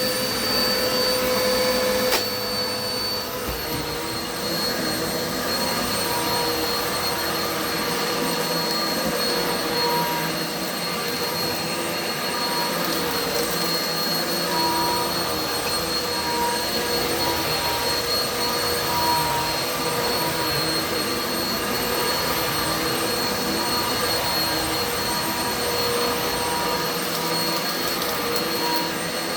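Kenmore Progressive vacuum running steadily, its motor giving a high, even whine over the rush of air. About two seconds in there is a sharp click and the motor's pitch drops a little.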